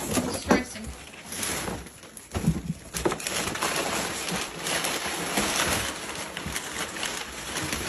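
Wrapping paper being torn and crumpled off a large gift, a continuous crackling rustle with many sharp rips.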